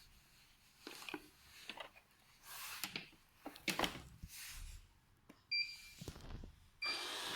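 Knocks, clicks and rubbing as a QQ6 robot vacuum cleaner is handled, then the robot gives two short electronic beeps, and with the second its suction fan starts up as a steady hiss near the end.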